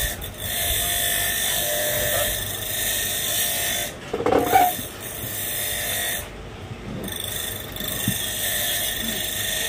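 Steady high whirring of a small electric motor, cutting out briefly about four seconds in and again about six seconds in. A short clatter comes about four seconds in.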